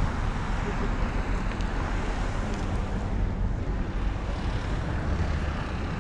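Road traffic: cars driving past on the road, a steady low rumble and tyre hiss.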